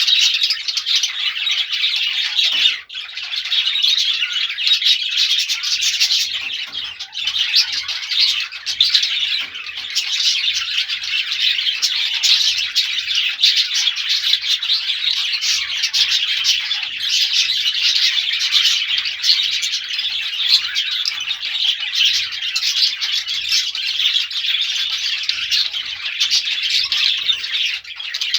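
Many small birds chirping at once, a dense, continuous high-pitched chatter of overlapping chirps.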